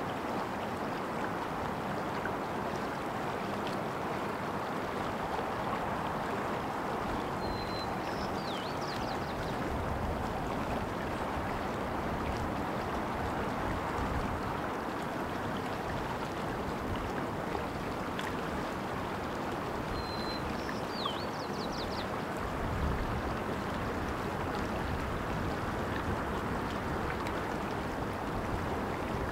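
Steady rush of flowing stream water. A small bird calls briefly twice, once about a quarter of the way in and again about two thirds through: a short high note, a downward slur and a quick trill.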